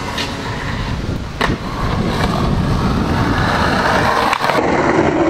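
Skateboard wheels rolling over rough concrete on a steep bank, a steady gritty noise, with a sharp clack of the board about a second and a half in.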